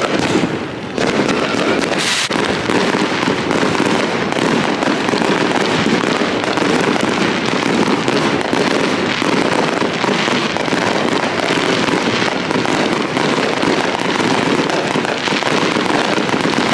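Fireworks going off: a loud, dense, unbroken crackle of rapid pops that holds steady throughout.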